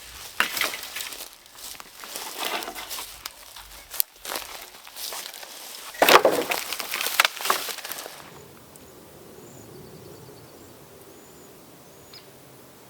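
Footsteps crunching and snapping through dry brush and sticks, irregular and loud for several seconds, then stopping. Afterwards a quiet outdoor background with a few faint high chirps.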